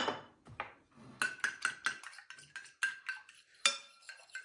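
A fork beating eggs and milk in a white ceramic bowl: quick clinks of metal against the bowl, about four or five a second, each ringing briefly. A sharp knock opens it.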